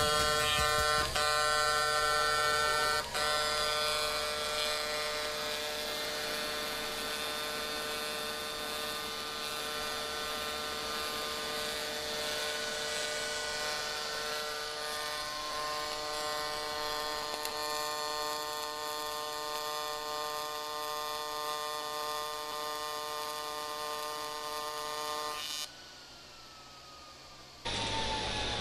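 AC TIG welding arc from a Miller Multimatic 220 AC/DC on quarter-inch aluminum at about 210 amps, near the machine's maximum output: a steady, evenly pitched electric buzz, the AC frequency on auto-set, which the welder thinks is around 120 Hz. The arc cuts out near the end.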